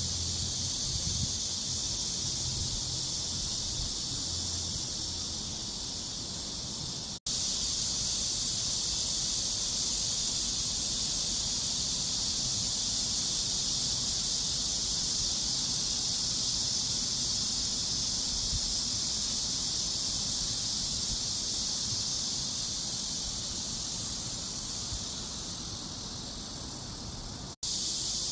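A chorus of cicadas buzzing in a steady, high-pitched, continuous drone. It drops out for an instant twice, about seven seconds in and just before the end.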